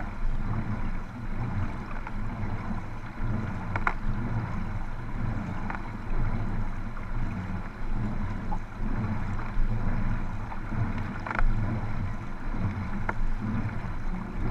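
Sprint kayaks being paddled: water rushing and churning against the hulls close to the water surface, with the rhythmic splash of paddle blades. A few sharper splashes stand out.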